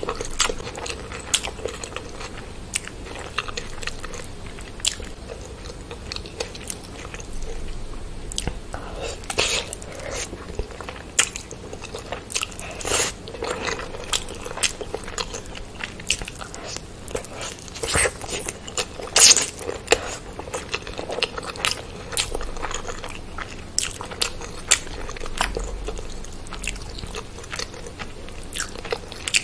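A person eating chicken biryani with bare hands: chewing and biting chicken leg pieces and rice, with many irregular wet clicks and crunches.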